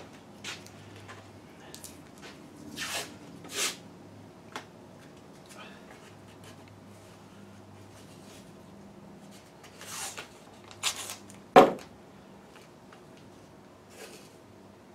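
Hand work on parts at a bench: scattered clicks and rustles, with one sharp knock, the loudest sound, about two-thirds of the way through, over a faint steady hum.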